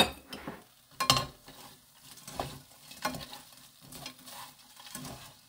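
Two wooden spatulas stir-frying crisp, sugar-glazed dried chili peppers in a nonstick frying pan, one scraping, tossing stroke about every second. A sharp knock comes right at the start.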